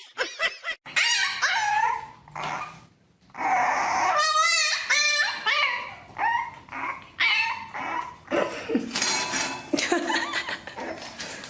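A pet animal giving a run of high-pitched whining cries and yelps that rise and fall in pitch, one of them with a fast wavering quiver.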